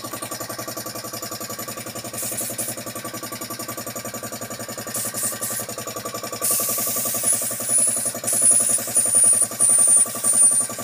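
An air compressor runs steadily with a fast pulsing throb. A gravity-feed spray gun hisses in two short bursts, then sprays continuously from about two-thirds of the way through, laying on paint.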